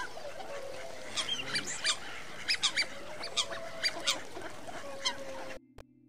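Swans calling: a series of short calls, repeated irregularly, cutting off abruptly about five and a half seconds in.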